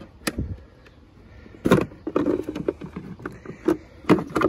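A handful of irregular plastic clicks and knocks as the cover of a van's under-hood fuse and relay box is unclipped and lifted off.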